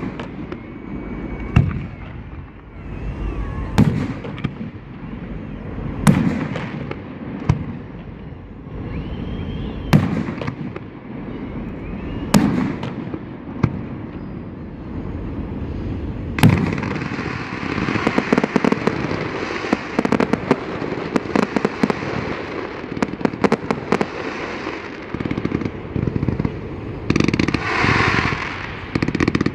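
Aerial fireworks display: shells burst with sharp bangs every two seconds or so, then a dense rapid crackling of many small pops takes over about halfway through, with a brighter crackle near the end.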